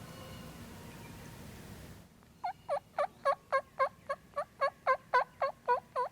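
A turkey yelping: a long, even series of about fourteen yelps, roughly four a second, starting a little over two seconds in.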